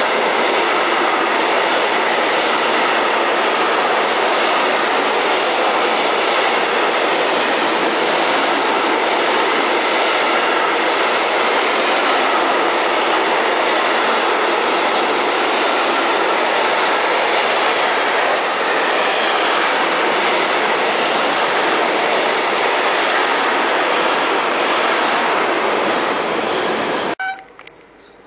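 Intermodal freight train of pocket wagons carrying lorry trailers rolling past: a steady loud rush of wheel and rail noise. It stops abruptly near the end.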